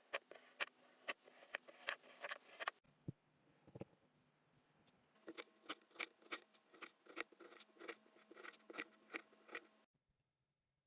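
Kinetic sand crunching as it is worked, a run of crisp clicks about three a second, a lull with a soft low thump around four seconds in, then another run of clicks that stops abruptly near the end.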